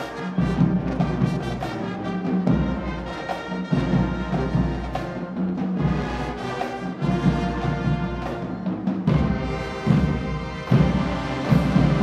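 High school marching band playing: sousaphones, trombones and trumpets over bass drums and percussion. The playing grows louder with heavy hits near the end.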